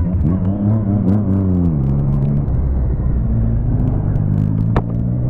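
Motorcycle engine heard from the bike itself while riding, the revs rising and falling over the first couple of seconds, then dropping to a steadier, lower note. A sharp click comes near the end.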